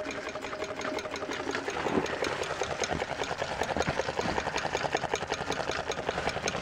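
Small homemade air-cooled Stirling engine running steadily, making a rapid, even clatter of ticks, several a second, while it drives a small generator.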